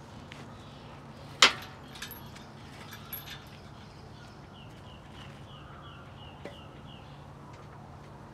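Metal tools and engine parts clinking during the engine swap: one sharp metallic clank about a second and a half in, then a few lighter clicks. In the middle comes a bird's quick run of high chirps, about five a second.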